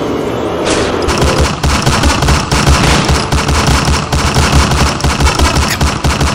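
Rapid automatic gunfire sound effects: a fast, unbroken run of loud shots.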